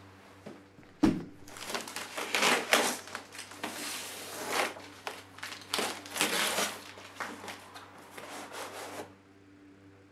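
A thump about a second in, then striped hazard tape torn off a cardboard supply box and the flaps pulled open, with irregular tearing and rustling of tape and cardboard.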